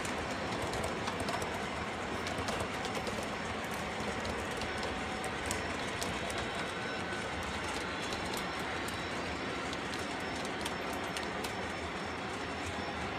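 O gauge model trains running on the layout's track: a steady rolling rumble from the wheels, with irregular clicks as they cross rail joints and switches.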